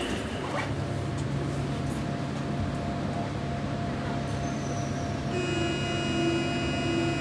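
Berlin U-Bahn train standing at a platform with its doors open: a steady electrical hum from the car's equipment, joined about five seconds in by a high, steady whine of several tones.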